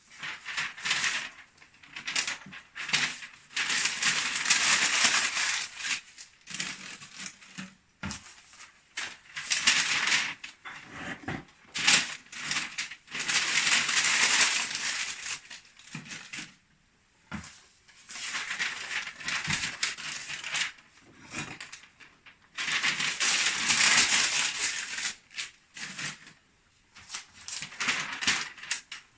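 Paper being crumpled in bursts of a few seconds each, with short wooden clicks and knocks as split kindling is laid into a wood stove's firebox to start a fire.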